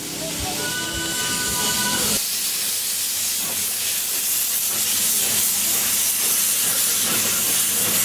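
Steam locomotive venting steam from its open cylinder drain cocks: a loud, steady hiss that grows slightly louder. For the first two seconds a few steady high tones sound over it, and they cut off abruptly.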